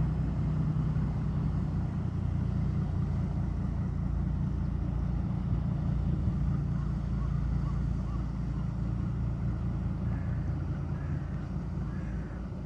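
Fishing boat engine running with a steady low drone.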